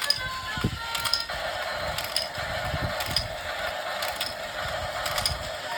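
Battery-operated baby toy's mechanism whirring steadily with repeated ratcheting clicks, after the last few notes of a simple electronic tune at the start.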